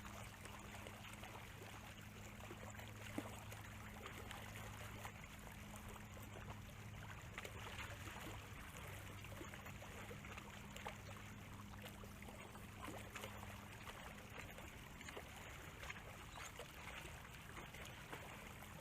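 Faint ambience of shallow water lapping at the shore, scattered with many small ticks and crackles, over a low steady hum.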